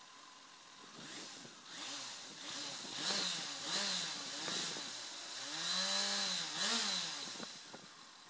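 Yamaha FZ6 S2 Fazer's 600 cc inline-four engine revved in neutral: a string of quick throttle blips, then a longer rev about six seconds in, dropping back to idle near the end.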